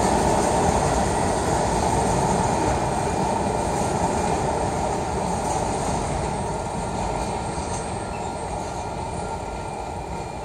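Rear cars of a long freight train rolling away on the main line, steel wheels running on the rails. The rumble fades steadily as the end of the train pulls away.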